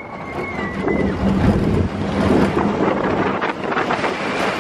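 Expedition Everest steel roller coaster train rushing along its track, wind buffeting the microphone, with a low rumble throughout. A high held tone sounds through the first second.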